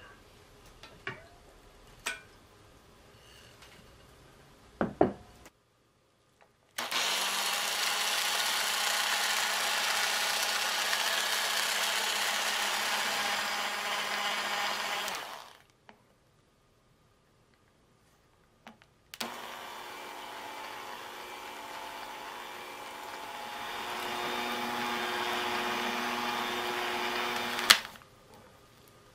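Electric hand mixer beating warmed eggs and sugar in a glass bowl for a sponge cake: a few light clinks first, then the mixer runs loud for about nine seconds. After a pause it runs again more quietly at low speed, bringing the batter to the thick, pale stage, and stops with a sharp click near the end.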